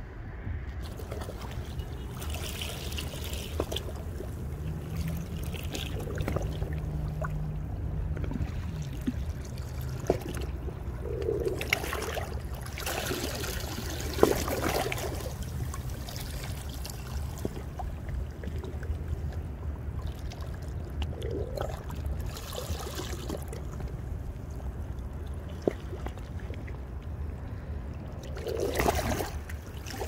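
Seawater lapping and trickling among shoreline rocks, in soft splashy washes several times over a steady low rumble.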